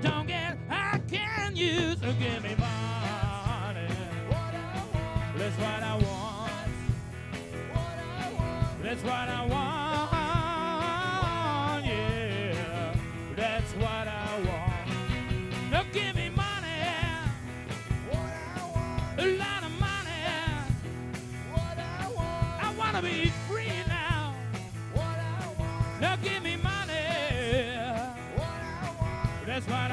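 Live rock band playing: electric guitars, bass and drums, with a wavering lead melody over a steady low bass line.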